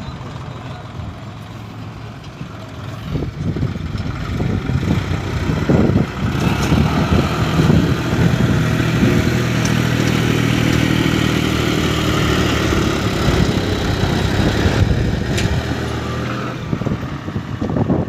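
Diesel engines of a backhoe loader and tractor running at work. The engine noise grows louder about three seconds in and stays high and steady with some clatter.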